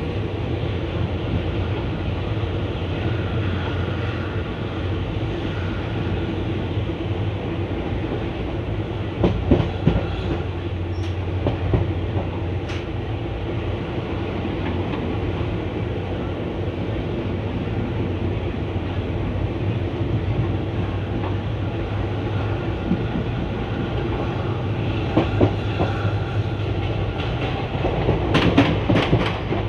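Indian Railways ICF passenger coach running on the track: a steady low rumble with groups of sharp wheel clacks over rail joints about nine seconds in, again around twenty-five seconds, and loudest near the end.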